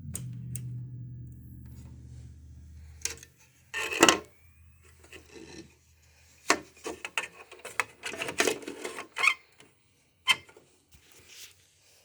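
Handling noise from a desktop computer's case and parts: a string of knocks, clicks and rubbing scrapes, the loudest about four seconds in. A low hum fades out over the first few seconds.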